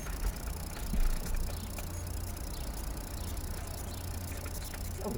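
Vehicle engine idling, heard from inside the cab as a steady low rumble, with a light knock about a second in.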